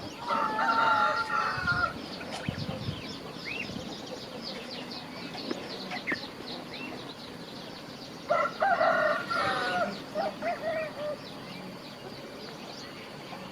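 A rooster crowing twice, about eight seconds apart, the second crow trailing off into a few short calls. A steady high chirping runs in the background.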